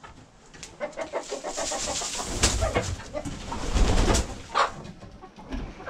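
A flock of chickens in a coop calling and clucking, with bursts of wing-flapping and scuffling as they crowd excitedly around scratch grain; the loudest flurry of flapping comes about four seconds in.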